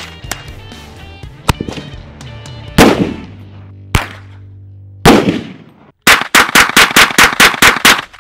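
Rifle gunfire over background music: single shots at irregular intervals in the first five seconds, some of them echoing, then a rapid string of about ten shots, roughly five a second, from an AR-15-style semi-automatic rifle near the end.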